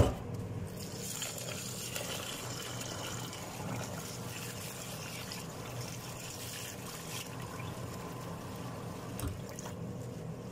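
Rice being rinsed by hand in a bowl of water, with water trickling and splashing; the sound is livelier for the first several seconds. A single knock comes right at the start.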